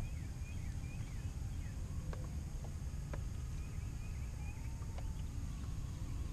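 Outdoor lake ambience: a steady low rumble, with a few light clicks and knocks of tackle being handled in a kayak. A bird repeats short falling chirps in small runs.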